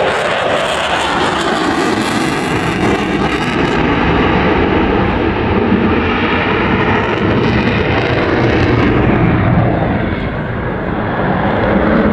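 Eurofighter Typhoon's twin EJ200 turbofan engines making a loud, sustained jet noise as the fighter flies past. Slow sweeps run through the noise, which dips slightly about ten seconds in and then rises again.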